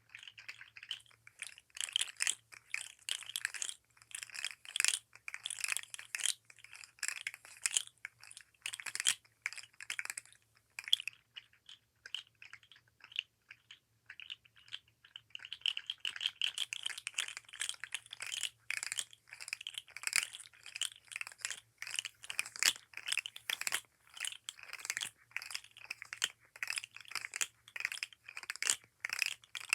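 Articulated plastic fidget slug toy being handled: its segments clatter in rapid, irregular runs of small clicks, thinning to a sparse few in the middle before going dense again.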